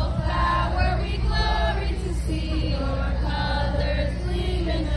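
A group of students singing the school alma mater together, holding long notes, with a steady low rumble underneath.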